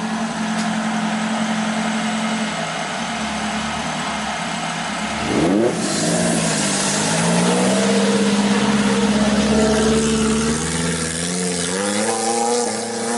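Off-road jeep engine revving under load, its pitch holding, then climbing sharply about five seconds in and rising and falling after. A loud rushing noise joins it at the rev and runs on to the end.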